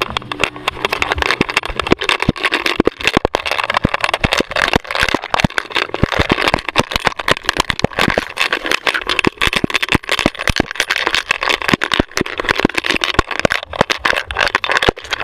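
Rapid, irregular clattering and rustling from a dog-mounted GoPro jolting with every stride as the dog runs and spins.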